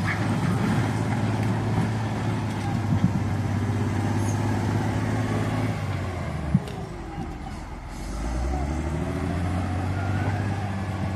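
A vehicle engine running steadily; its pitch dips and climbs again around eight seconds in. A sharp knock sounds about three seconds in and again about six and a half seconds in.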